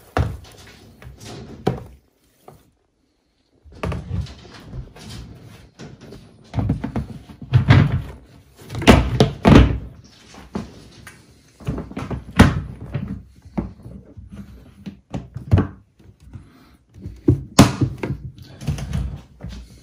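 Hard plastic storage tub and its ventilated lid being handled and moved, giving a string of irregular knocks and thuds of plastic.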